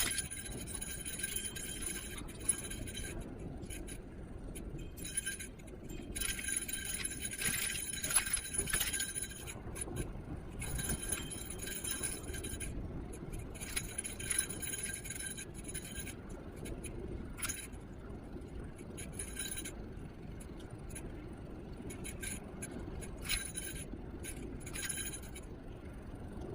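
Niu KQi3 Pro electric scooter riding along: steady road and tyre rumble with light rattling and clinking, and a high whine that comes and goes in stretches.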